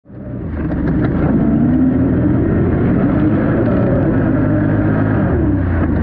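ATV engine running on a trail, fading in at the start, its pitch wavering up and down with the throttle.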